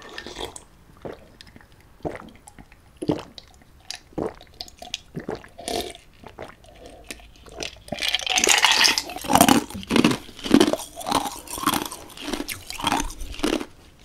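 Close-miked mouth sounds of drinking Ramune soda from a glass full of ice. There are a few scattered swallows and clicks, then a rattle of ice shifting in the glass as it is tipped up about eight seconds in. A run of loud crunching about twice a second follows: ice being chewed.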